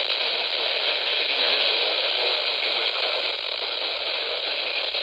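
Weather radio receiver giving a steady static hiss on a weak NOAA Weather Radio signal. The broadcast voice is lost in the noise: poor, interference-laden reception of a distant station.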